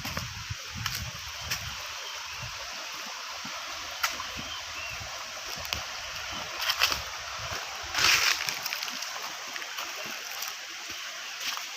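Water running steadily, broken by several short splashes, the loudest about eight seconds in.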